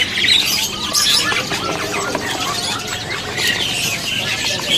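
Many Javan mynas crowded in a plastic transport basket, chattering and squawking with dense, overlapping short harsh calls.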